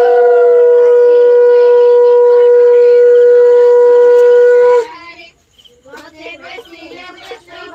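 Conch shells (shankha) blown in puja worship, two together: a loud, steady held note, with a second higher note that slides down and drops out about a second and a half in. The main note holds until a little before five seconds, then ends with a slight fall in pitch, leaving murmuring voices.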